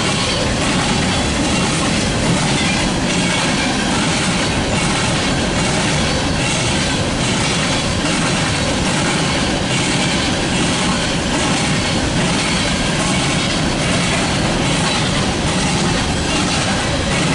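Freight train of coal gondola cars rolling steadily past, a continuous loud rumble of steel wheels on the rails with faint, regular clicking of wheels over the track.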